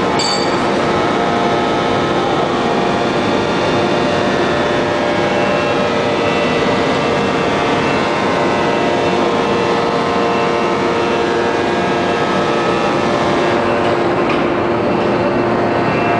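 1250-ton open-die forging press and its plant running: a loud steady machinery drone with several steady whining tones and no distinct blows.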